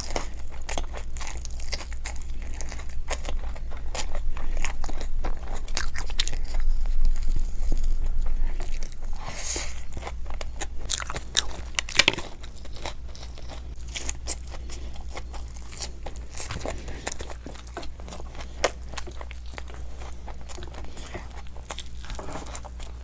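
Close-miked biting and chewing of fried Indian snacks (pakoda fritters and samosa), a dense run of crisp crunches and crackles that is louder for the first half and turns to softer chewing later.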